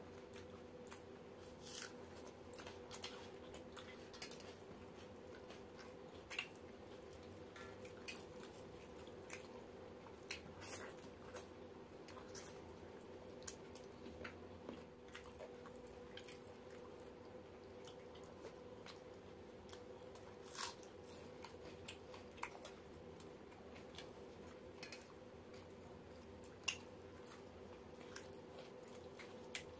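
Two people eating roti and chicken curry by hand: soft scattered chewing, smacking and small clicks of fingers tearing flatbread and touching steel plates, with one sharper click near the end. A steady low hum runs underneath.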